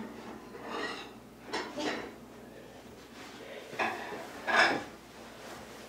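A few short household clinks and clatters, off and on, the loudest about four and a half seconds in.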